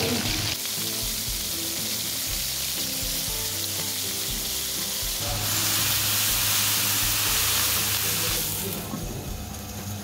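Halved crabs sizzling as they pan-fry in a hot wok. About five seconds in, the sizzle grows louder and hissier as cooking wine is poured onto the hot crabs, then falls quieter near the end.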